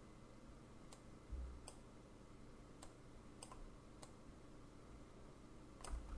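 Faint computer mouse clicks, about six of them spaced a second or so apart, over quiet room tone, with a soft low bump about a second in.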